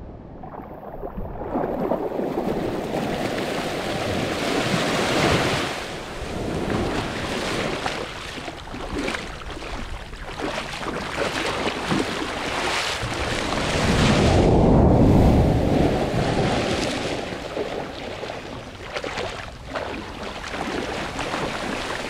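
Small waves washing in and out over shallow water and sand at the shoreline, the surf swelling and easing in slow surges and loudest about two-thirds of the way through. The sound is muffled for the first second or so.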